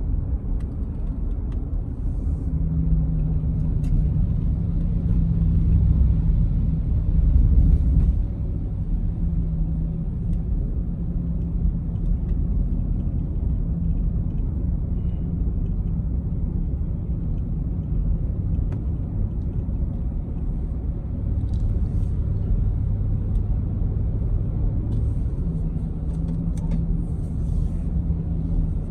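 Car driving along a road: a steady low rumble of engine and tyres, swelling a little louder about halfway through the first third.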